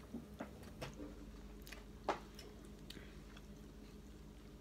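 A person eating with their hand: quiet chewing with small mouth clicks, and faint handling of food in a plastic takeaway tray. One sharper click about two seconds in.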